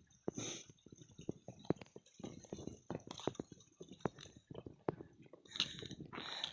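Footsteps on a rocky trail: irregular crunches and sharp clicks of shoes on stone and grit, several a second, with a longer scuff near the end.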